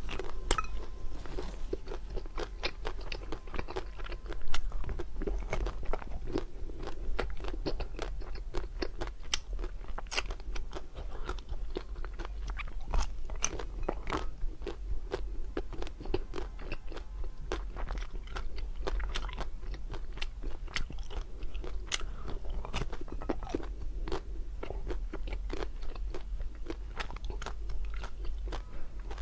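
Someone biting and chewing ice cream with many crisp, irregular crunches, one louder crack about four seconds in, over a steady low hum.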